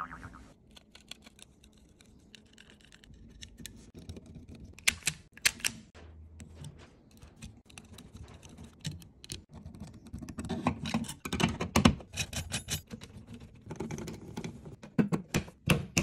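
Hand-work noise from wiring and fitting a wall light switch: an irregular run of small clicks, taps and scrapes of plastic and metal, busier in the second half, with the rocker switch clicked near the end.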